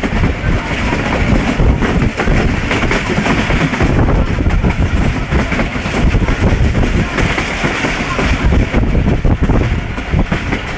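Hazara Express passenger train running along the line, heard from an open coach window: a steady, loud rumble of wheels on the rails.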